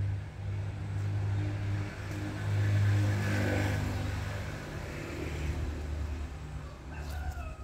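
A motor vehicle's engine rumble, swelling to its loudest about three seconds in and then easing off. Near the end a long pitched animal call begins and falls in pitch.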